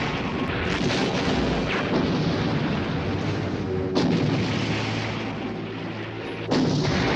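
Giant-monster film soundtrack: dense booming and rumbling destruction effects, with sudden loud hits about 4 and 6.5 seconds in and a steady low hum between them.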